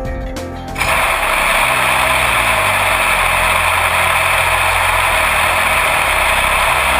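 Automated ultrasonic washer running its rinse stage: a loud, steady hissing that starts suddenly about a second in, with background music underneath.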